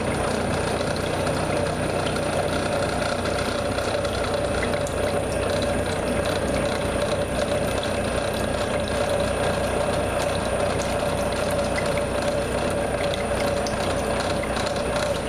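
CNC milling machine hobbing a helical gear: the spindle and hob cutter running steadily with a constant machine hum and fine ticking.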